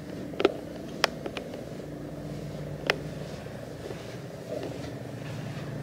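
A steady low hum with a few sharp clicks, four of them in the first three seconds.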